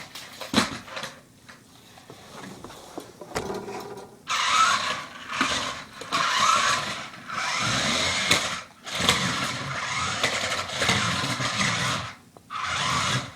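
Remote-control car's motor and gears whirring in several spurts of a few seconds each, starting about four seconds in with short breaks between. A few light clicks and knocks come before.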